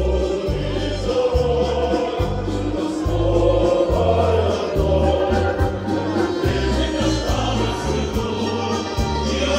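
Music: a choir singing a song over accompaniment with a bass line of short, even notes.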